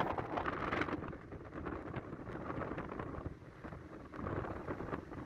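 Low, uneven rumble of wind buffeting the microphone, mixed with road noise from a moving vehicle.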